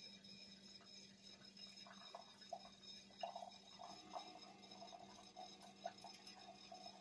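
Near silence: faint, irregular small crackles from hands handling a small object, over a steady faint hum.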